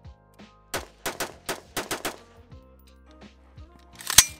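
Bushmaster Bravo Zulu AR-15-style rifle fired semi-automatically: about eight quick shots in the first two seconds. After a pause there is one louder sharp crack near the end, with faint background music underneath.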